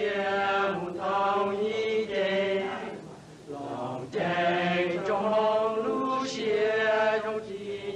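Hmong men singing a slow chant together, in long held notes, with a short break about halfway through.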